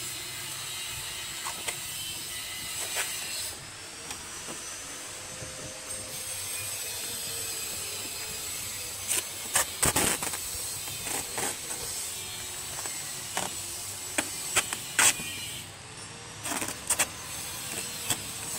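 Packing tape being pulled off its roll and cardboard being handled while a machine is wrapped, heard as a series of short rips and rustles, loudest about ten and fifteen seconds in, over a steady background hum.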